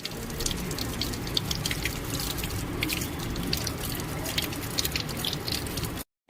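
Water running and splashing steadily, with many small irregular drips and ticks over it.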